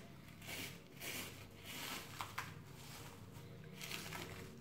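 Plastic cling film rustling and crinkling faintly as hands peel it back, with two light clicks a little over two seconds in.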